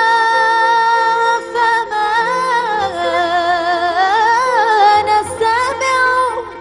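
A woman singing a long wordless vowel in Arabic tarab style. She holds one note steady at first, then breaks into wavering, sliding ornaments that climb and fall before trailing off near the end.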